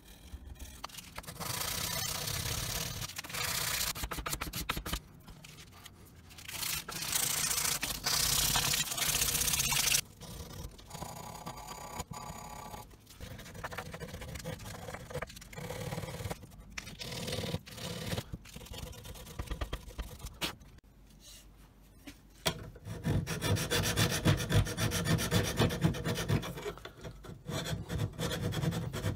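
Hand sanding of a steel karambit blade cut from a motorcycle brake rotor: abrasive paper rubbed back and forth over the metal in quick scraping strokes. The strokes come in several spells with short pauses between them, and are busiest near the end.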